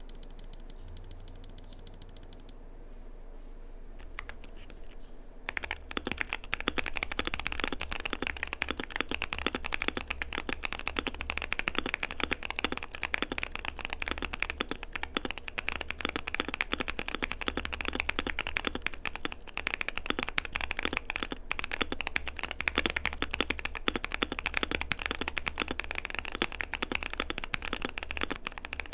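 Modded Keychron Q2 mechanical keyboard with lubed Gazzew Boba U4T tactile switches and Cherry-profile keycaps being typed on fast and continuously. Its polycarbonate plate, foams and tape mod give it a deep, damped keystroke. The typing starts about five seconds in, after a faint low hum.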